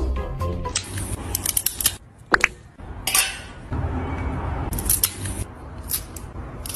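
Pet nail clipper snipping a cat's claws: a series of short, sharp clicks and snips with pauses between them.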